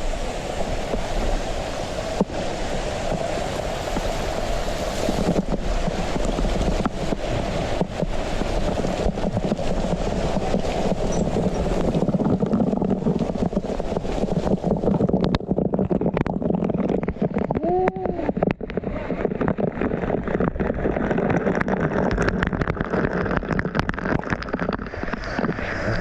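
Steady rushing of a waterfall, with frequent knocks and crackles on the microphone.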